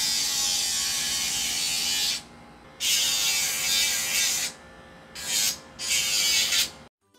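Electric dog nail grinder running against a dog's nails during a nail trim, a steady high whine. It starts and stops in four stretches, the first the longest, with short quiet gaps between.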